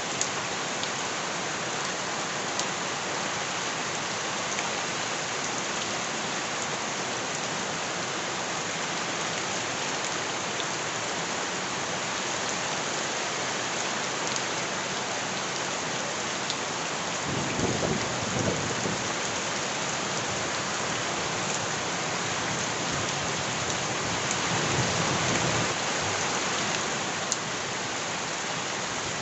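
Steady heavy rain, a dense even hiss of drops with occasional sharp drip ticks. Twice, a little past the middle and again later, a low rumble swells under the rain for a second or two.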